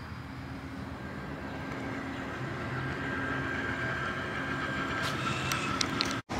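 Amtrak California Zephyr passenger train rolling along, heard from inside the car: a steady low rumble with a few sharp clicks near the end, cutting off suddenly just before the end.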